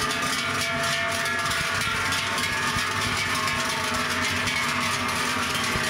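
Many large cowbells worn by a passing herd of cows, clanging and ringing together in a steady, dense din of overlapping tones.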